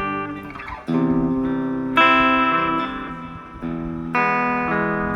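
Epiphone Les Paul 100 electric guitar played through an Aroma TG-08 mini amplifier on its clean setting. Chords are struck about once a second and left to ring.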